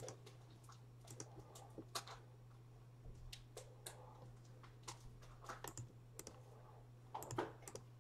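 Quiet, irregular light clicks and taps, a few a second, over a faint steady low hum.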